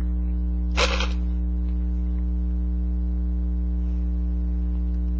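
Steady electrical mains hum, low and unchanging, with a ladder of higher tones above it. A brief rustling noise comes about a second in.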